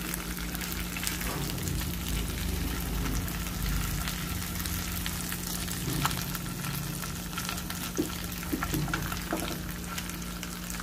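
Pork carnitas and tortillas frying and sizzling in the rendered pork fat of a frying pan, while the tortillas are turned with metal tongs; a few sharp clicks of the tongs against the pan stand out over the sizzle.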